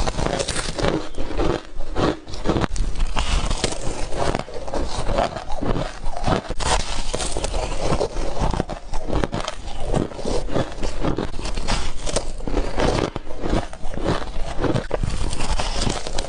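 Ice being bitten and crunched close to the microphone: a dense, unbroken run of crisp crunches and crackles.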